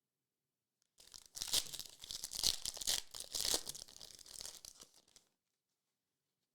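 Foil wrapper of a trading card pack being torn and crinkled open, a rustling tear of about four seconds with three louder rips.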